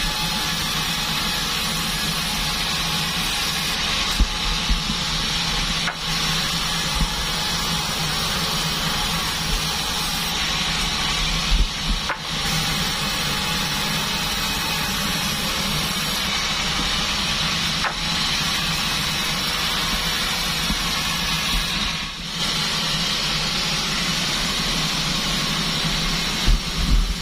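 Sawmill bandsaw running steadily and cutting durian wood, a constant hum and hiss with a few short knocks of wood.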